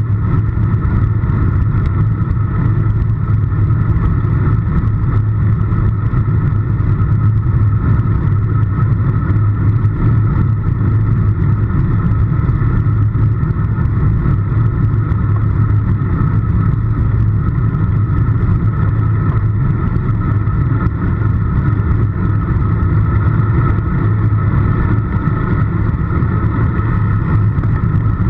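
Steady wind rush and road noise on the microphone of a handlebar-mounted action camera on a road bike moving at speed: a constant deep rumble that does not let up.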